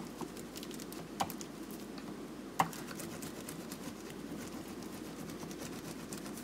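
Wooden rolling pin rolling sesame-sugar brittle mixture flat between greased plastic sheets: faint crinkling and light ticking, with two sharp knocks, one about a second in and a louder one about two and a half seconds in.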